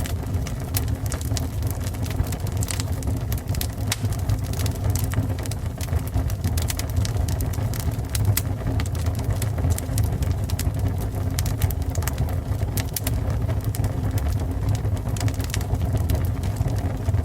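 Fire burning: a steady low rumbling roar with frequent, irregular sharp crackles and pops.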